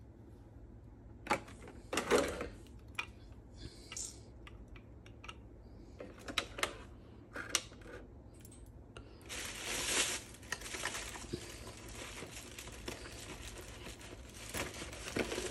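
Scattered clicks and taps of hard plastic filter parts and a clear blister tray being handled. About nine seconds in, a steady crinkling of plastic bags begins.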